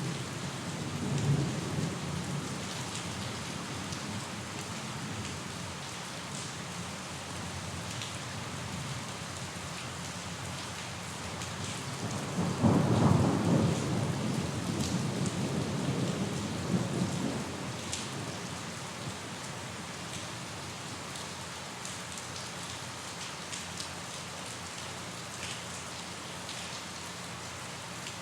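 Steady rain falling, with scattered drop ticks. A brief low rumble of thunder comes about a second in, and a louder, longer roll of thunder starts a little before halfway and dies away over about five seconds.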